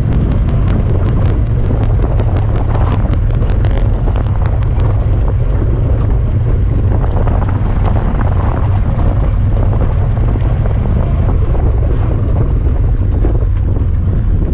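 Honda Talon 1000R side-by-side driving, its parallel-twin engine rumbling steadily under wind noise on the microphone. A fast, even ticking runs through the first five seconds or so, then stops.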